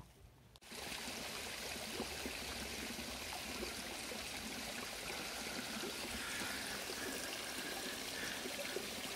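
Mountain spring water running steadily from the outlet pipes of a plastic collection tank. It starts abruptly just under a second in.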